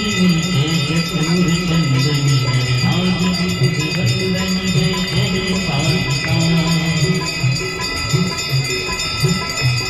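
Brass bells ringing without a break through the Hindu aarti ritual, over devotional singing and music.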